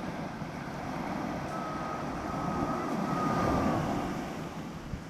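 Ocean surf with an engine passing, swelling to its loudest about three and a half seconds in and then fading, a thin high tone sounding over it for a couple of seconds.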